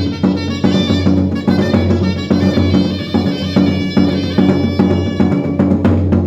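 A band playing: wind instruments holding notes over an even drum beat.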